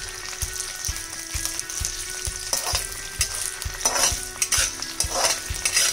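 Diced boiled potato frying in hot oil in a metal kadai, sizzling steadily, while a steel spatula scrapes and turns the pieces against the pan several times.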